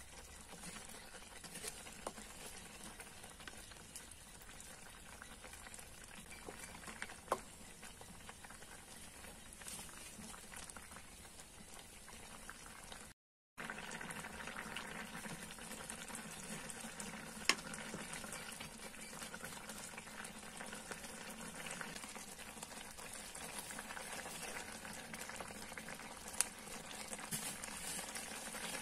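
Banana blossom curry bubbling and simmering in a pot, stirred with a wooden spoon, with a few sharp clicks. The sound cuts out briefly about halfway and comes back louder.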